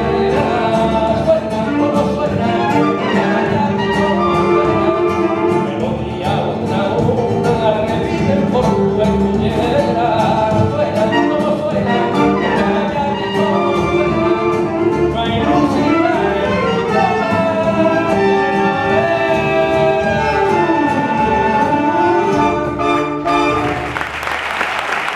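A live rumba sung by a group of voices in chorus with band accompaniment, ending about a second before the close, when applause breaks out.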